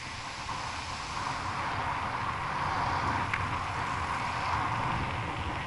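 Riding noise from a mountain bike on asphalt: wind on the bike-mounted camera's microphone and the steady rolling hum of the tyres, getting a little louder after about two seconds.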